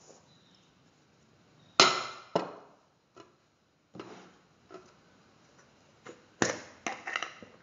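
A metal spoon knocking and clinking against a stainless steel pressure cooker pot: about eight sharp knocks with a short ring, the loudest about two seconds in and a cluster of them near the end.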